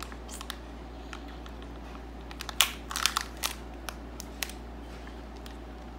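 Crinkling and tearing of a Kinder Egg's small paper toy wrapper as a child works it open, in scattered short crackles that are loudest about two and a half to three and a half seconds in.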